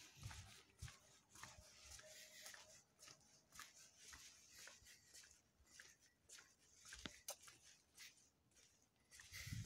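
Faint, irregular footsteps crunching on grit and broken asphalt, mixed with the rustle of a handheld phone, over a low hiss. A heavier thump comes near the end.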